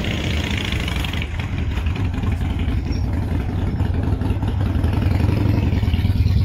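A car engine idling with a steady low rumble, getting somewhat louder in the last couple of seconds.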